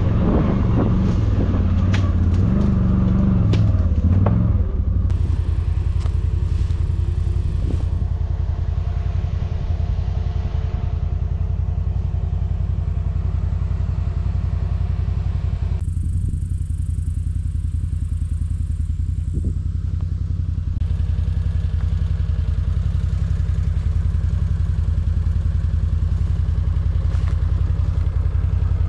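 CFMOTO G3 1000 engine revving up and down over the first few seconds, then running at a steady pitch, with a few light knocks along the way.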